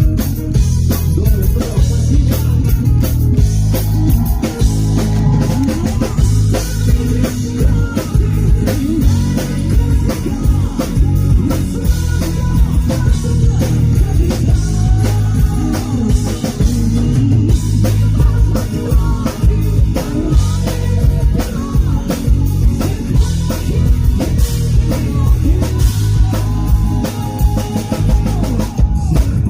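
Live rock band playing in an acoustic arrangement: a drum kit keeps a steady beat under guitars, with a winding melody line above.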